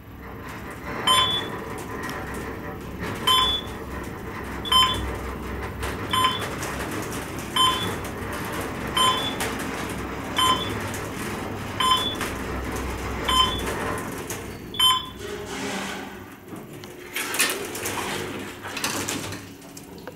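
Schindler elevator car travelling upward: a steady low hum of the ride, with a short electronic beep as the car passes each floor, about every second and a half, ten times. About fifteen seconds in the hum fades as the car slows to a stop, followed by some clattering knocks.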